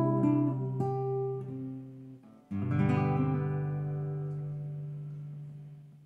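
Nylon-string classical guitar playing a song's ending. A few picked notes die away, then a final chord is struck about two and a half seconds in and left to ring out.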